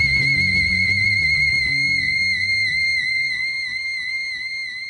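Closing bars of a late-1960s psychedelic rock song: a high held note with a slight waver rings over a low accompaniment. The low parts drop out about three seconds in and the held note fades away.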